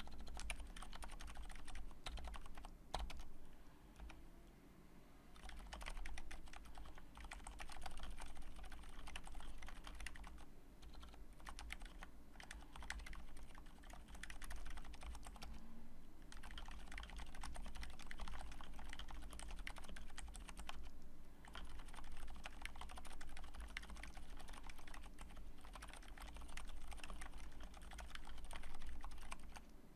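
Fast continuous typing on a custom mechanical keyboard with lubed silent Cherry MX Red switches in a steel plate, giving soft, muted keystroke clicks, with brief pauses about 4, 10, 16 and 21 seconds in.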